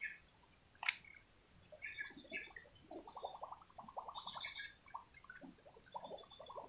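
Faint bird calls: short high chirps about two and four seconds in. From about three seconds on there is a fast rattling run of ticks, about ten a second, and a single sharp click about a second in.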